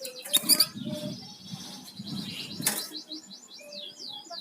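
Flamboyan songbird singing: a quick run of short, falling, high chirps in the second half. Two sharp clicks come earlier.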